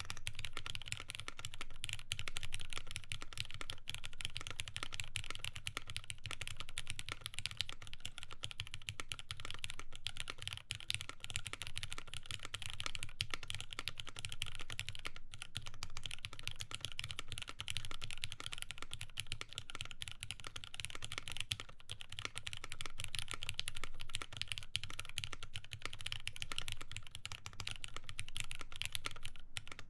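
Steady fast typing on a mechanical keyboard with lubed Cherry MX Black linear switches, polypropylene plate and GMK keycaps: a continuous run of keystroke clacks.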